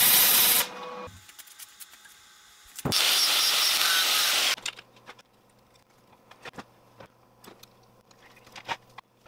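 A welding arc crackling steadily, cutting off just under a second in. About three seconds in, an angle grinder's cutoff wheel cuts into a small steel part for about a second and a half. Then come faint scattered clicks and taps of small metal parts being fitted together with a screwdriver.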